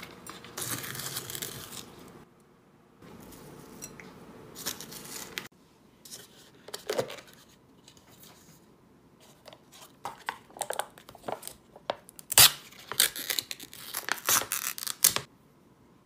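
A mascarpone tub being opened by hand: its plastic lid and a foil sachet crinkle and its film seal tears. Softer rustling comes first, then a dense run of sharp crackles over the last third that stops abruptly.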